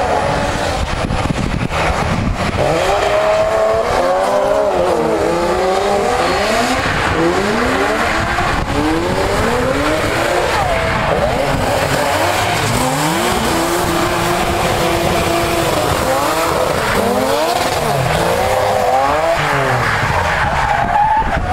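Drift cars' engines revving hard, the pitch rising and falling over and over as the cars slide through the corners.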